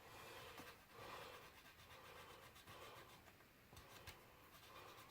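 Very faint scraping strokes of a straight hand file rubbing on dried putty and resin, swelling and fading at an uneven pace.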